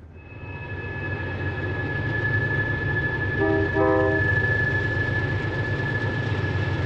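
Diesel freight locomotives running under a steady high whine, growing louder over the first couple of seconds. About halfway through, the locomotive horn sounds two short blasts.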